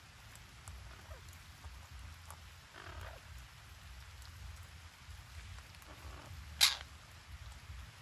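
A red-breasted parakeet gives one short, harsh squawk about six and a half seconds in, with a fainter call about three seconds in. A low steady rumble runs underneath.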